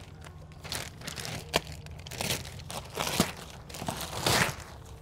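Clear plastic shipping wrap crinkling and tearing as it is cut with scissors and pulled off a crated electric dirt bike, in irregular rustles and crackles, loudest near the end.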